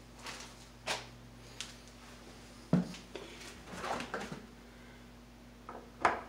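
Scattered knocks, clicks and rustles of a screwdriver and cable being worked at a plastic electrical box overhead, with sharp knocks about three seconds in and near the end, over a steady low hum.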